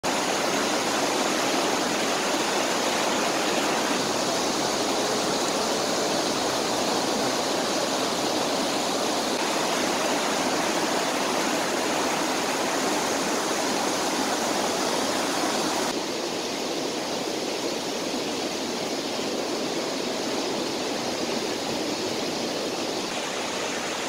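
Rocky mountain stream rushing over boulders and small rapids: a steady, even rush of water that drops slightly in level about two-thirds of the way through.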